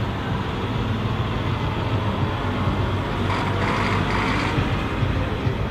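Fendt 1050 Vario tractor's six-cylinder diesel engine running steadily as the tractor drives along, a continuous low drone. About three seconds in, a brief higher-pitched rushing noise lasts about a second over it.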